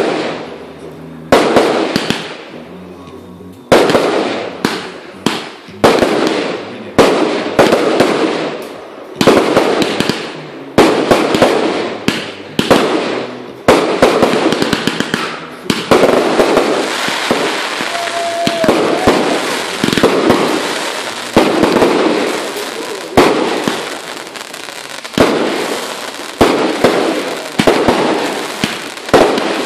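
Fireworks display: a rapid series of loud bangs as aerial bursts go off, about one every second or two, each followed by crackling. Through the middle the reports crowd together into an almost continuous crackling din.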